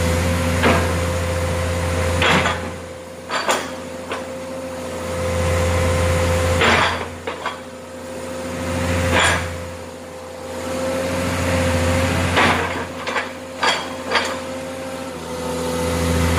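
Komatsu PC130 excavator's diesel engine running with a steady hum that swells and eases in turn as the hydraulics work the log grapple. Sharp metal knocks and clanks come every second or two, several close together near the end.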